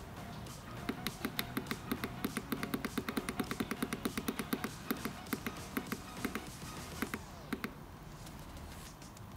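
A rapid, regular series of sharp clicks, about five a second, that thins out and stops near the end.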